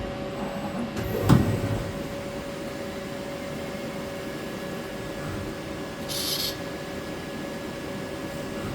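CNC machine running with a steady hum while thread-cutting a PEEK part, with a single knock about a second in and a short hiss about six seconds in.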